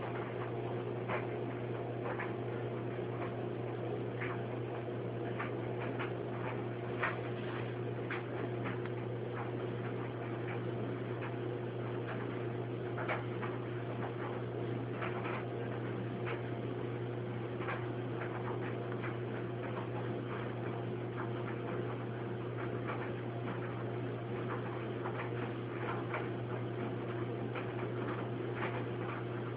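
A steady low hum with irregular faint ticks and clicks scattered over it.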